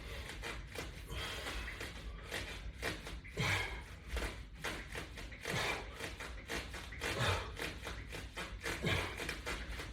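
Person exercising with resistance bands: rustling and light taps, with short exhalations falling in pitch, repeated every couple of seconds with each repetition.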